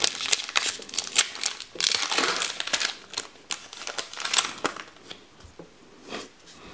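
Foil booster-pack wrapper crinkling and tearing as it is ripped open by hand and peeled back, with dense crackling and sharp snaps; the crinkling thins out and gets quieter about five seconds in.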